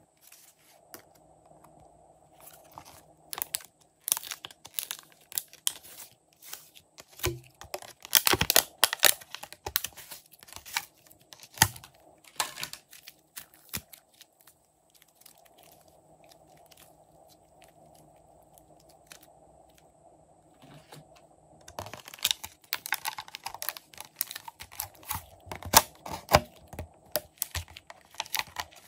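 Crinkling and crackling of clear plastic packaging being handled and pulled at, in two spells of dense sharp crackles with a quieter stretch in the middle.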